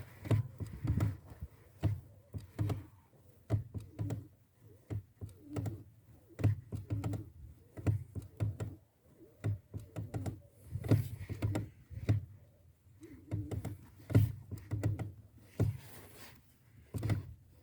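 Clutch pedal of a 1992 VW Passat B3 being pressed and released again and again, crunching and creaking with each stroke in a series of short irregular knocks, clusters coming every second or so. The owner traces the noise to the pedal assembly inside the cabin, not the engine bay.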